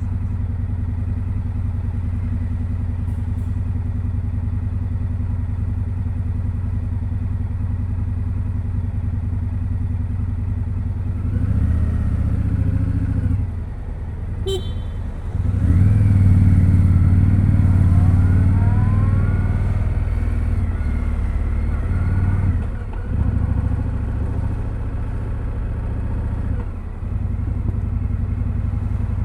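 2025 Indian Scout Sixty Bobber's V-twin running through its stock exhaust: steady and even for the first ten seconds or so, then louder pulls with the engine note climbing, broken three times by short dips like gear changes. A brief high chirp sounds about halfway through.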